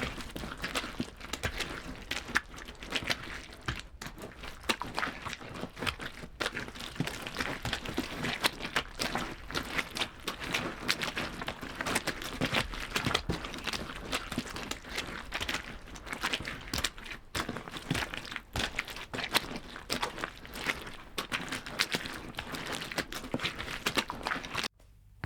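Footsteps crunching on a loose, crunchy surface: a continuous run of crunching steps that stops abruptly just before the end.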